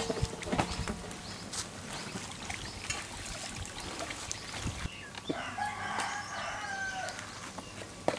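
A rooster crows once, a call of about two seconds starting a little past halfway. Sharp clinks and scrapes of a metal slotted ladle in a kadai of frying oil are scattered throughout.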